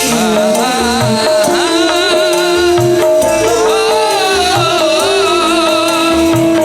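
Live campursari band music: a hand-drum rhythm under a wavering melody line and held notes.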